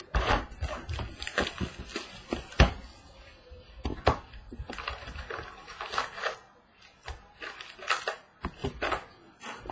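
A 2015 Panini Prizm football hobby box and its card packs being handled on a tabletop: a string of sharp knocks and thuds with rustling in between, a few of the knocks loud.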